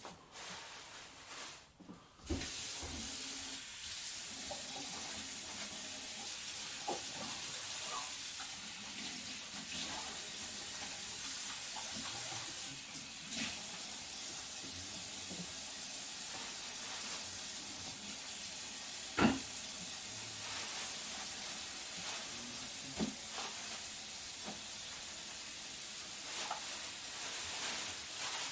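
Kitchen tap switched on and running steadily into a sink, a steady hiss with a few light knocks of things handled under the water, the loudest about two-thirds of the way through.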